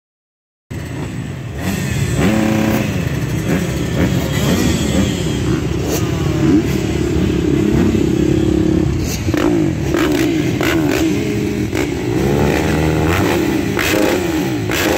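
A row of motocross bikes at the start gate, their engines idling and revving together, pitches rising and falling as riders blip their throttles. The engine sound cuts in abruptly just under a second in.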